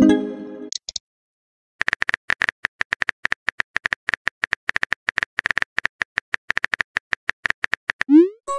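Texting-story app sound effects: a short message chime at the start, then rapid, even keyboard-tap clicks for about six seconds as a message is typed out, ending near the end in a quick rising whoosh as the message is sent.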